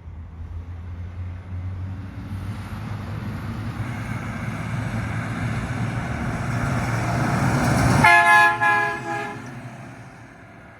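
Garbage truck approaching, its engine and road noise building for about eight seconds, then a loud horn blast of about a second and a half as it passes, after which the truck's noise fades.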